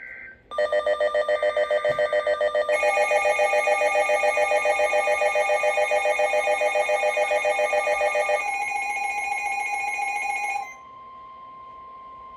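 NOAA Weather Radio warning alarm: a steady tone near 1 kHz (the 1050 Hz warning alert tone) under loud, rapidly pulsing electronic alarm beeps, about eight a second. A second beeping layer joins a few seconds in. The beeping stops about two-thirds of the way through, leaving the plain steady tone. It signals that a warning is about to be read.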